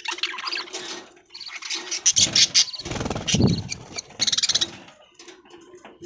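A flock of budgerigars chattering and chirping, a dense run of rapid high warbles coming in clusters, with a couple of louder, lower sounds mixed in, one about three seconds in.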